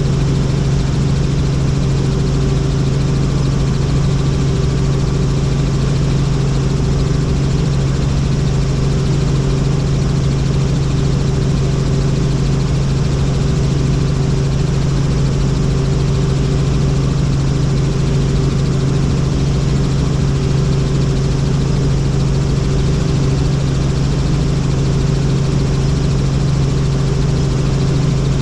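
Helicopter running, a loud, steady, unchanging drone with a strong low hum.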